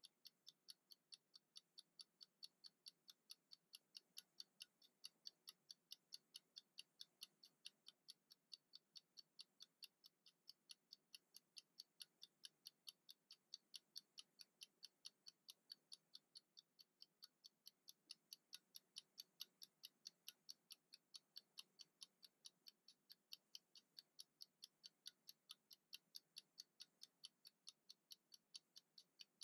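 Wind-up mechanical kitchen timer ticking steadily, faint, crisp ticks at about three a second, as it runs down with its pointer almost at zero.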